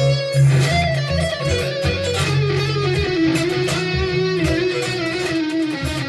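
Band music led by electric guitar, playing steadily with a bass line and a beat.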